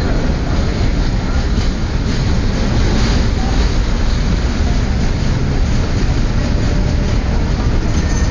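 Suburban passenger train moving along the line: a steady rumble of wheels on rails with a few faint clicks.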